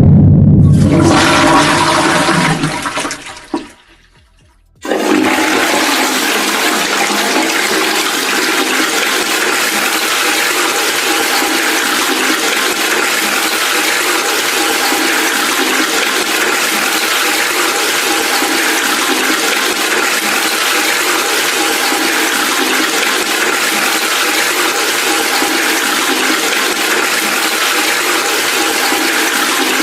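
A loud low sound dies away over the first few seconds. After a brief near-silent gap, a steady rushing, water-like noise starts abruptly and carries on unchanged at a high level.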